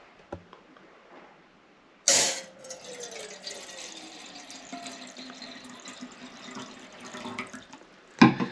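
Water poured from a plastic bottle into a metal camping pot: it starts suddenly about two seconds in with a splash and runs steadily for about six seconds. A sharp knock comes near the end.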